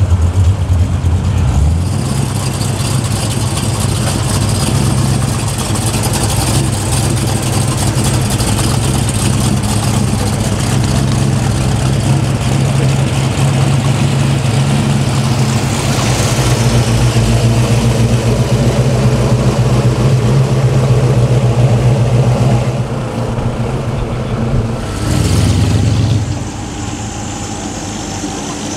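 American V8 muscle-car engines rumbling at low speed as the cars drive past one after another, among them a Chevrolet Chevelle SS and a second-generation Dodge Charger. A short burst of revs comes near the end, after which the engine sound drops a little.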